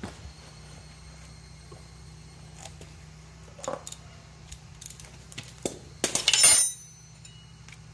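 A burst of metallic clinking, like hand tools or small metal parts handled against each other, about six seconds in. Before it come a few light clicks, all over a steady low hum.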